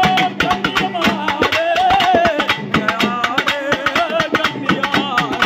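Tamil devotional folk song: a man singing into a microphone over fast, steady drumming.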